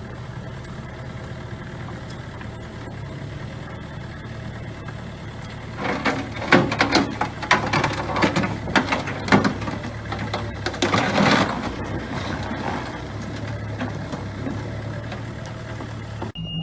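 An engine idling steadily, with a run of loud clattering knocks in the middle.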